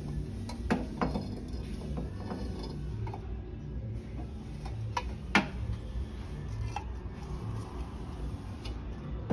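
Small glazed clay bowls (cazuelitas) clinking and knocking against one another as they are lifted from a stack on a shelf: a few separate sharp clinks, the loudest about five seconds in.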